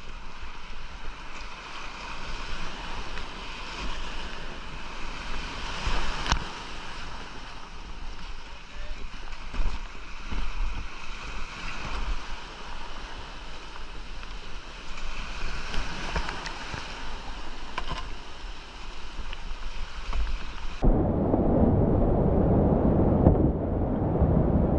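Whitewater of a creek rapid rushing around the kayak, with a sharp knock about six seconds in. Near the end the sound turns louder and muffled as the kayak goes over the log and into the slot drop.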